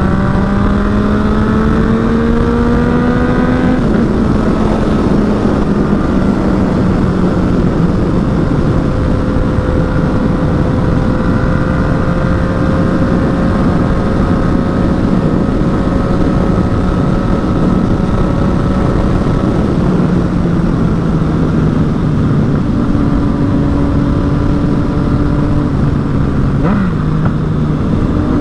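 Yamaha MT-09's three-cylinder engine under way. Its pitch rises for the first few seconds and drops at an upshift about four seconds in, then holds a steady cruise with small changes in pitch, over a constant rush of wind and road noise.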